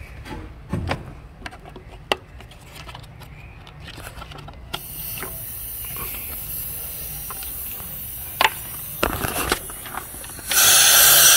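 Scattered clicks and knocks of hand tools and parts being handled in an engine bay. A steady hiss comes in about halfway through, and a loud rush of noise starts near the end.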